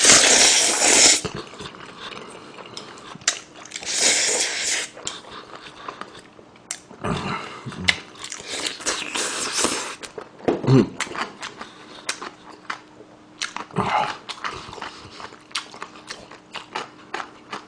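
Slurping of black-bean-sauce (jjajang) instant noodles close to the microphone: a loud slurp at the start and another about four seconds in, with more slurping and smacking around seven to ten seconds in. Wet chewing and lip smacks run between the slurps.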